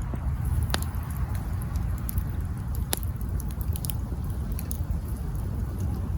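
Campfire wood burning: a low steady rumble with scattered small crackles and two sharp pops, one about a second in and one about three seconds in.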